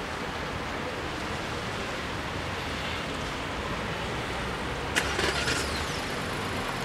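Steady noise of road vehicles waiting with engines idling, with a low rumble until near the end. About five seconds in there is one short, sharp clatter.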